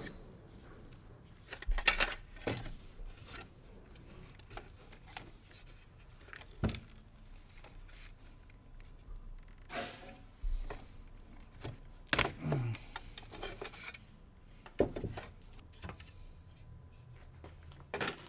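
Scattered clicks, taps and knocks of small plastic steering-wheel trim pieces and tools being handled, coming irregularly with gaps of a second or more between them.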